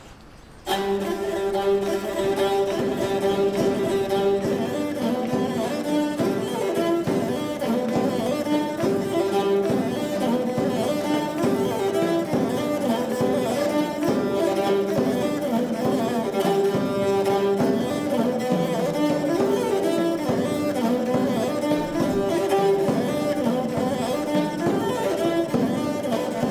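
Background music played on bowed strings, coming in suddenly under a second in and carrying on at an even level.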